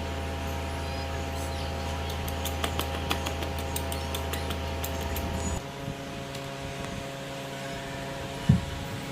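Steady electrical hum that cuts off suddenly about five and a half seconds in. A quick run of light clicks comes just before it stops, and a single short thump comes near the end.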